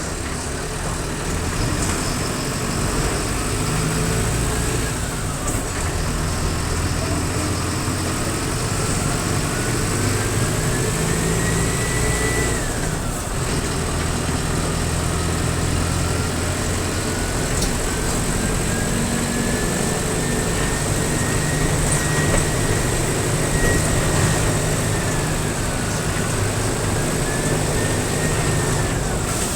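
Mercedes-Benz OF-1722M bus diesel engine running under way, with a thin whistle over the engine drone that climbs slowly in pitch as the bus pulls. The whistle drops sharply about twelve seconds in, climbs again and holds high, dips briefly, and falls once more near the end.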